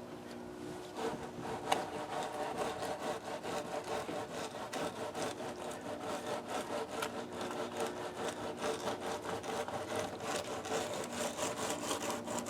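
Rhythmic back-and-forth scraping of a hand tool, a few strokes a second, starting about a second in and keeping on steadily.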